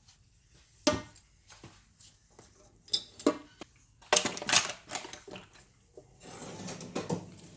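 Metal hand tools being set down and clattering in a drawer: a sharp clink about a second in, a couple more around three seconds, a quick run of clatter around four to five seconds, then shuffling and rustling near the end.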